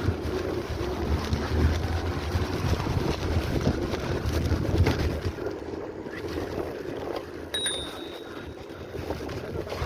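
Steady low rumble with wind noise on the microphone. A short high beep about three-quarters of the way through.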